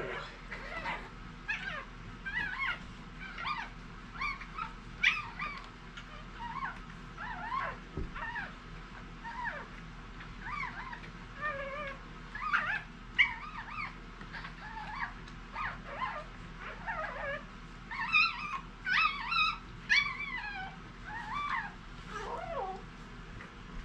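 Newborn Irish Setter puppy squeaking and crying in many short, high-pitched cries that slide up and down in pitch, thickest near the end, while it is rubbed vigorously in a towel. The crying makes the newborn take big breaths of air, which is the point of the rubbing.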